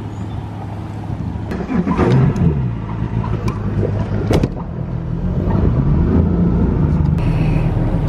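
Bass boat outboard motor running at idle, rising and falling briefly in pitch twice, with a few sharp knocks and clatters from the boat.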